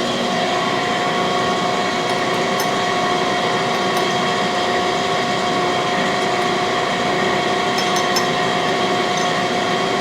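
Cam grinding machine running steadily, its motors giving a constant whine made of several steady tones, with a few faint light ticks.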